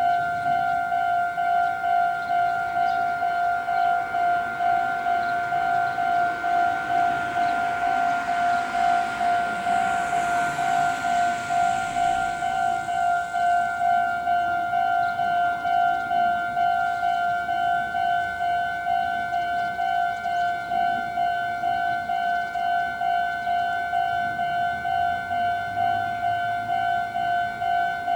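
Japanese level crossing's electronic warning bell ringing continuously, a steady ding repeating about twice a second. A train passes under it from about seven to fourteen seconds in, a rush of wheel and track noise that swells and fades.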